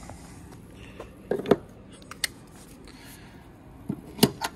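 Sharp plastic clicks and knocks as a J1772 charging connector is handled and pushed into a Tesla Model S charge port. The loudest clicks come near the end, as the connector seats.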